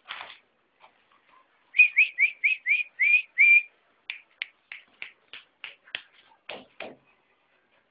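A person whistling short, rising chirps to call a dog, about four a second, then quicker clicking chirps; near the end there are two fuller, lower sounds.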